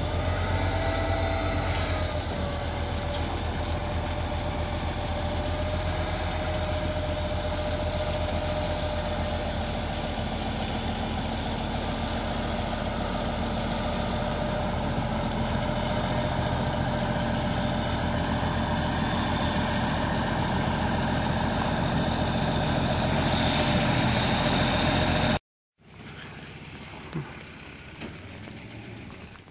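A truck engine idling steadily, with a faint wavering whine above it. About three-quarters of the way through it cuts off suddenly, leaving a much quieter background with a few small clicks.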